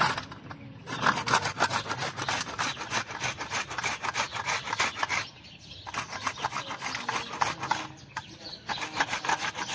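Carrots being grated on a flat metal hand grater: quick, regular rasping strokes, several a second, broken by three short pauses.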